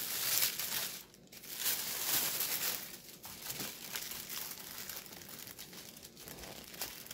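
Tissue paper rustling and crinkling as hands fold it back and dig into a cardboard box. It is loudest in the first second and dips briefly, then goes on as lighter rustling.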